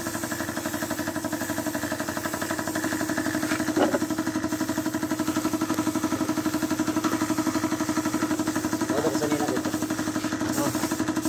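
Air compressor motor running steadily to feed a hose-fed paint spray gun, with a steady hiss of air and spray over it.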